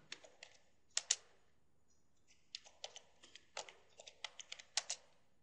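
Computer keyboard being typed on: separate key clicks, a few taps with two louder strokes about a second in, a short pause, then a quicker run of keystrokes.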